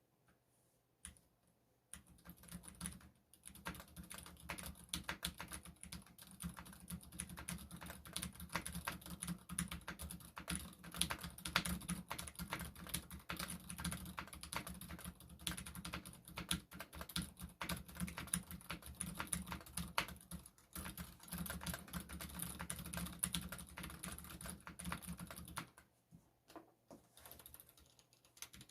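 Continuous fast typing on a custom aluminium 65% mechanical keyboard (KBD67 Mkii) fitted with lubed Zilent V2 silent tactile switches, GMK keycaps and two layers of foam. The keystrokes are muted and really quiet. The typing starts about two seconds in and pauses briefly near the end.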